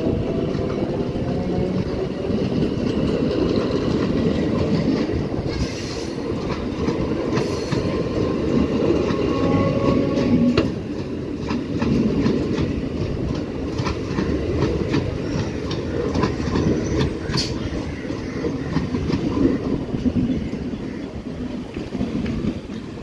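Old-type Indian Railways EMU suburban train running past close by, its wheels clattering over the rail joints with a steady rumble. A rising electric whine from the traction motors sounds in the first couple of seconds, and the noise eases a little near the end as the last cab goes by.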